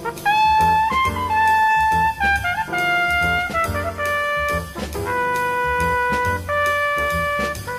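Jazz music: a brass horn holds long melody notes that step up and down in pitch, over a steady drum-kit beat and a bass line.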